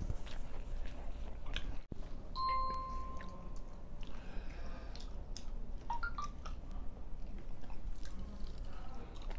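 Close-up chewing of egg-coated paratha flatbread, with many small wet mouth clicks. A short beep sounds about two and a half seconds in.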